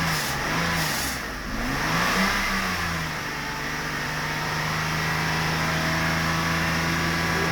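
Mercedes 600SEL's V12 engine revved in quick rises and falls, then held at a steady raised speed from about three seconds in. The engine is misfiring, running on 11 cylinders with cylinder 10 shut off.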